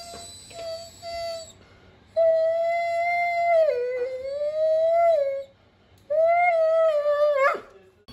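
Doberman whining: a few short whimpers, then two long, drawn-out whines, the first about three seconds long with its pitch sagging in the middle, the second shorter and ending in a quick rise and drop.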